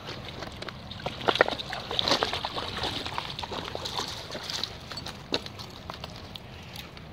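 A dog wading in shallow river water, the water splashing and sloshing around its legs, with scattered clicks and knocks of stones underfoot.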